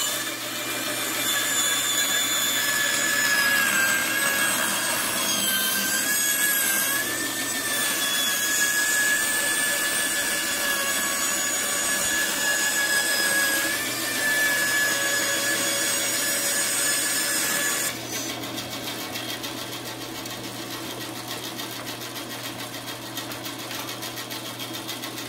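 Bandsaw cutting curved plywood, a steady whine over the rasp of the blade through the wood. About 18 seconds in the cut ends and the saw runs on freely, quieter.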